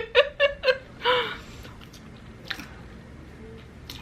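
A woman's short burst of laughter and a breathy exhale. Then a few faint wet mouth clicks from chewing.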